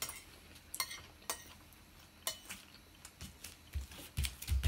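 Metal spoon and fork clinking and scraping on ceramic plates and bowls during a meal, a few sharp clicks spread apart. Several dull low thuds come near the end, the loudest just at the close.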